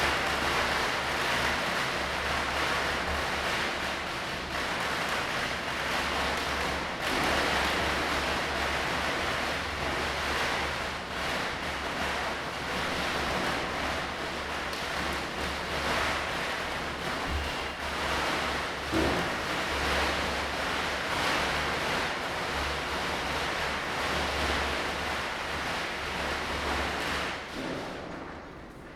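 Dense, continuous crackle of many firecrackers bursting at a distance, merging into a steady rushing wash with scattered sharper pops. One pop stands out about two-thirds of the way in, and the crackle thins and fades near the end.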